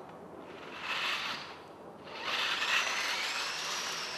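Small tracked military robot's electric drive motors whirring under remote control. A short burst comes about a second in, then a longer run from about two seconds in, with a whine that slowly rises in pitch.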